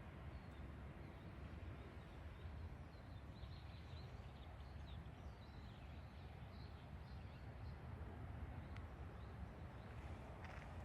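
Faint, high-pitched bird chirps, a quick run of short notes between about three and seven seconds in, over a steady low background rumble.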